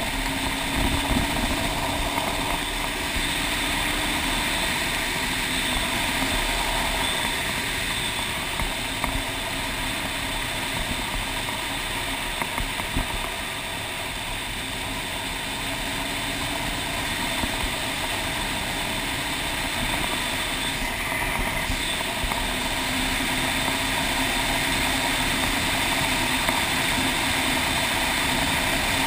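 Motorcycle engine running at a steady cruise on a gravel road, under a constant rush of wind and road noise, easing off slightly midway and picking up again toward the end.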